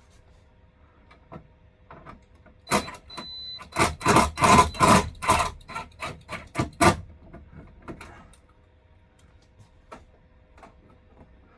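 Hand work on a travel trailer's air-conditioning unit: a quick run of about a dozen loud, sharp strokes over roughly four seconds, starting a few seconds in, followed by a few faint small knocks.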